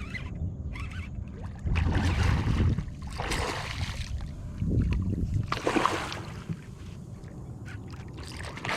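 Water sloshing and splashing around a fishing kayak, in uneven surges, with deep bursts of wind buffeting the microphone.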